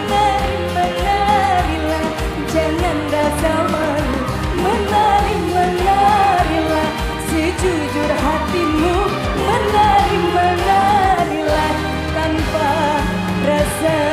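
Malay pop music: a woman sings a winding, ornamented melody over a band with a steady beat and bass.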